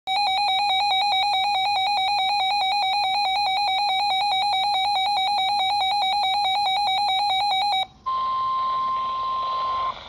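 RadioShack 12-254 NOAA weather radio sounding its alert: a rapidly pulsing electronic beep for about eight seconds. Then, over radio static, a single steady warning tone of about 1050 Hz for about two seconds, cutting off just before the end.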